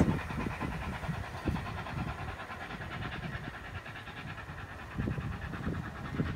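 GWR 57xx-class pannier tank steam locomotive and its train heard going away up the bank, the sound fading over the first few seconds. Irregular low rumbles run through it, with a louder patch about five seconds in.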